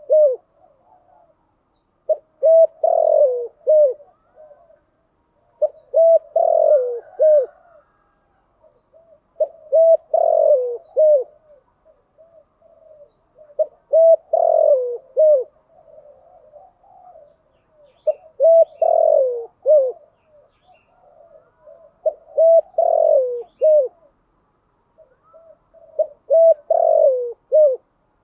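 Spotted dove cooing: seven phrases of several low coo notes, one about every four seconds.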